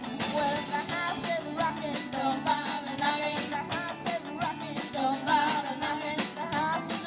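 Live rock band playing: a young female singer's lead vocal over electric guitars and a drum kit, with a steady beat.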